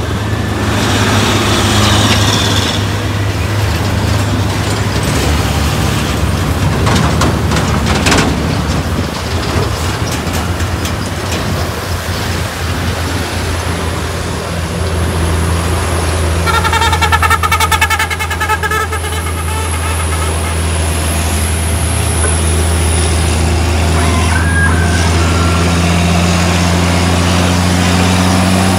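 Hino 500 trailer truck's diesel engine running steadily under load, its pitch climbing near the end. About two-thirds in there is a few seconds of harsh, pulsing, toned sound over the engine, and a thin high whine carries on after it.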